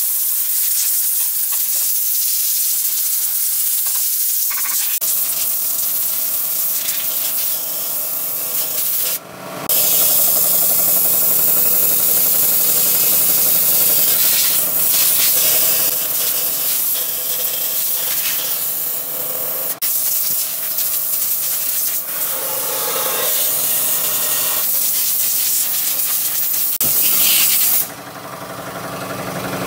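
Loud steady hissing and rubbing noise that cuts out briefly about nine seconds in and again about twenty seconds in, and drops lower near the end.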